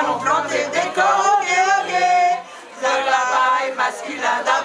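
A small mixed group of men and women singing together in unison, with a short break about halfway through.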